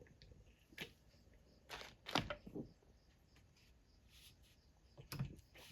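A few faint, scattered clicks and taps of small ratchet parts and hand tools being handled during reassembly: one just before a second in, a small cluster around two seconds, and another near the end.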